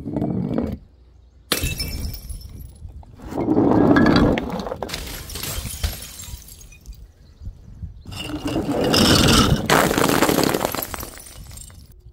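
Glass bottles shattering several times, each break followed by a long rattle and tinkle of falling shards.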